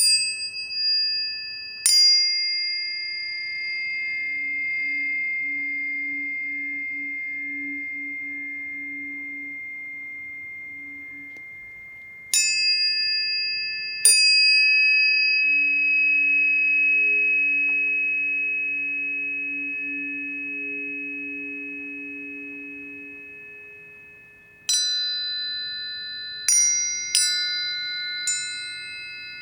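Planetary tuning forks struck one after another, eight strikes in three groups. Each strike gives a sharp metallic attack, then clear ringing tones that overlap and fade slowly, with a faint pulsing low tone beneath them.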